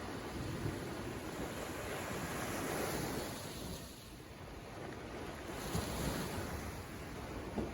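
Sea waves breaking and washing on the shore, swelling and easing in slow surges, with some wind buffeting the microphone.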